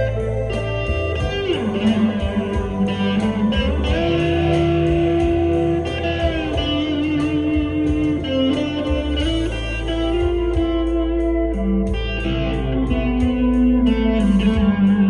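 Electric guitar, a Korean-made Epiphone Les Paul Custom with humbucker pickups, playing lead lines of held notes with several string bends that glide up and down in pitch.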